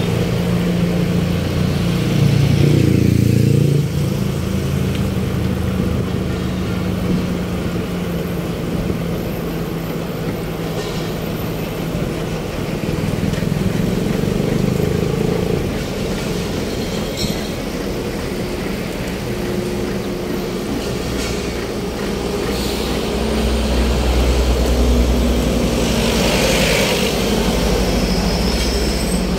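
City street traffic: motor vehicle engines running close by, with one getting louder about three seconds in and a deeper engine rumble building near the end.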